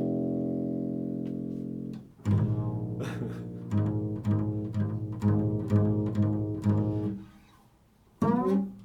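Improvised music on a low-pitched string instrument. One note is held for about two seconds, then a run of quickly repeated plucked low notes follows and dies away, and a fresh note is struck near the end.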